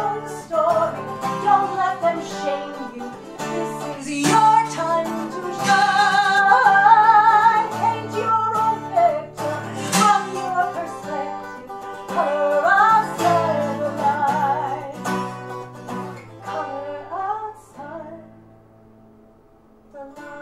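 A woman singing with vibrato over a strummed twelve-string acoustic guitar. The song dies away about two seconds before the end, and a steady held chord comes in at the very end.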